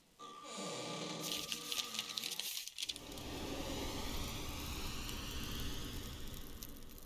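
Intro title sound effects: a sweeping tone with a glittering, clinking shimmer, a brief break about three seconds in, then a low, noisy whoosh with a faint high shimmer that slowly fades.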